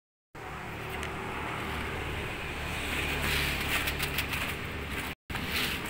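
Steady low hum of street traffic, with a few light clicks and rustles about three to four seconds in.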